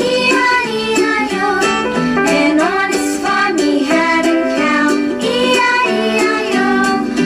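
A song with a high singing voice and instrumental backing, played through an Ahuja SCM-15 column speaker (two 6×4-inch drivers, 10 W) as a sound test.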